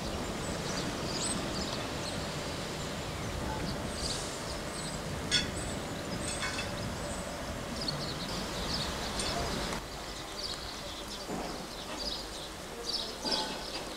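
Railside outdoor ambience: birds chirping over a steady low rumble that drops away about ten seconds in, with a couple of sharp clicks near the middle.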